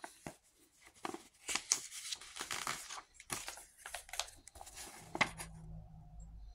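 Paper booklet and plastic Blu-ray case being handled: irregular rustling, crinkling and sharp clicks, stopping about five and a half seconds in.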